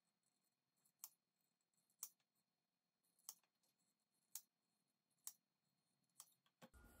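Hand-held rotary leather hole punch worked on a small leather piece, giving six faint, sharp clicks about a second apart.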